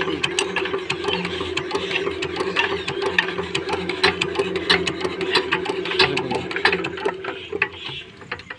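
Single-cylinder stationary diesel water-pump engine turning over with a rapid mechanical clatter and a steady hum, fading over the last second as it slows. The engine will not fire, with air trapped in its fuel line.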